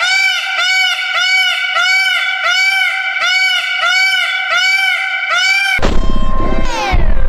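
Phonk music in a break with the bass cut out: a high, bending, pitched note repeats about twice a second. About six seconds in, the heavy bass comes back in with a falling sweep.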